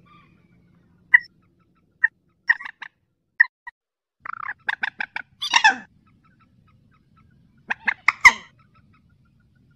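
Mandar sawah, a rail of rice fields, giving loud, sharp call notes in irregular groups: single notes at first, then a quick run about halfway through that ends in a harsher falling call, and another loud burst of notes near the end.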